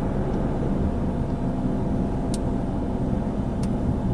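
Steady low rumble of a car idling, heard from inside the cabin, with two faint clicks about two and three and a half seconds in.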